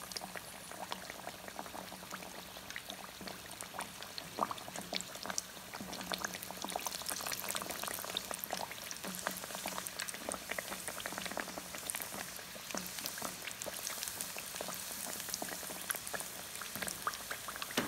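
Kachoris deep-frying in hot oil: steady sizzling with dense, fine crackling, a little louder from about six seconds in.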